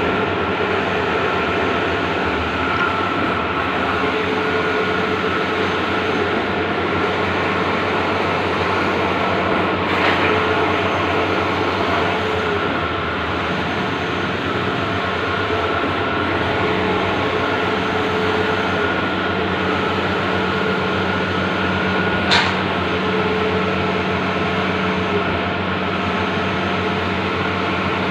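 Large-format Bluewin outdoor printer running: a steady mechanical hum with a whine, and a fainter tone that comes and goes. A sharp click stands out about two-thirds of the way through.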